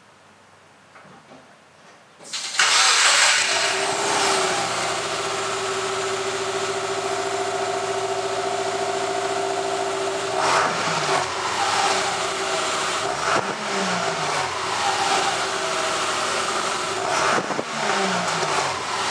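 Exhaust note of a 2007 Subaru Impreza 2.5i's 2.5-litre flat-four: the engine starts about two seconds in and settles into a steady idle, then is revved briefly three times, each rev dropping back to idle.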